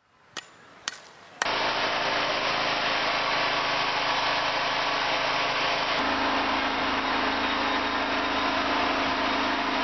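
Gasoline portable power generator (6.8 kVA) running steadily and loudly with an even engine hum, starting abruptly about a second and a half in after two faint clicks. About six seconds in, a steady low hum comes forward.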